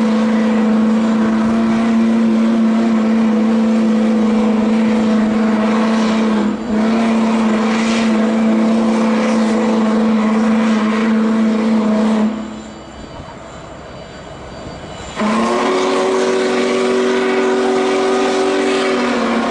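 Union Pacific Big Boy 4014's steam whistle blowing long, steady blasts with a chord-like tone. It breaks for a moment about six and a half seconds in and stops about twelve seconds in. A lower hiss follows for about three seconds, and then a second long blast starts.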